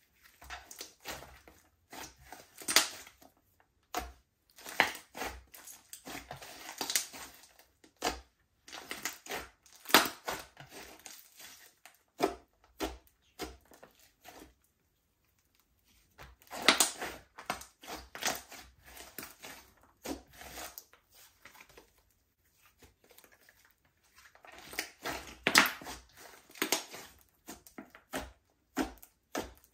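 Slime being squished and pressed by hand, giving irregular sticky squelches, pops and crackles, with a pause of a second or two about halfway through.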